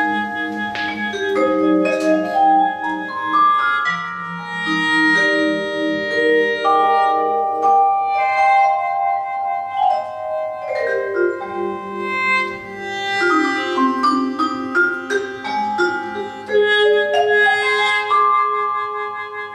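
Live instrumental music of struck, ringing tuned notes, mallet-struck percussion or a hammered dulcimer, playing repeated rising arpeggio runs over held lower notes.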